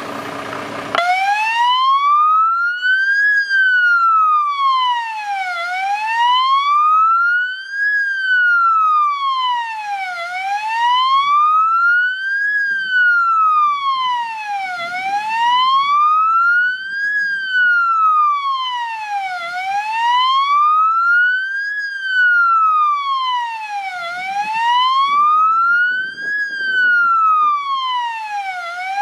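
MAN fire engine's siren sounding a slow wail, its pitch rising and falling smoothly about every four and a half seconds. It starts about a second in.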